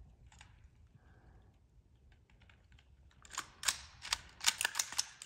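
A quick, irregular series of sharp clicks and snaps, starting about three seconds in and thickest near the end.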